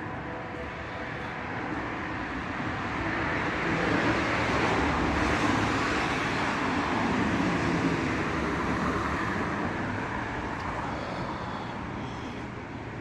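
A rushing noise from a passing vehicle, swelling to a peak midway and then fading away.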